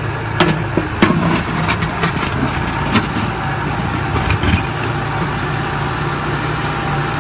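Backhoe loader's diesel engine running steadily, with a handful of sharp knocks and clanks in the first four or five seconds.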